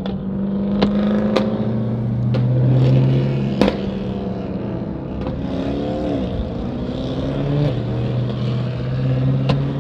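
Dodge Challenger Hellcat's supercharged V8 running under way, its note stepping down in pitch about a second and a half in and again near eight seconds, then climbing near the end. A few sharp knocks sound over it.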